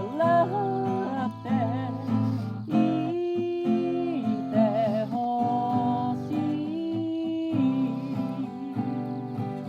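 Acoustic guitar strummed, with a voice singing along in held, wavering notes.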